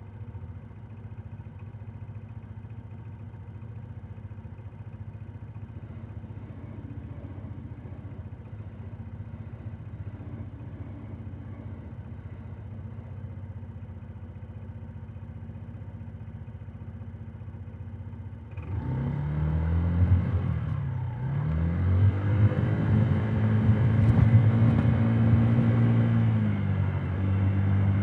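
Honda Today scooter's small single-cylinder engine heard muffled from inside the under-seat compartment, running steadily at low revs. About two-thirds of the way through the throttle opens: it gets suddenly louder, the engine note rises, dips briefly and rises again to a steady higher note.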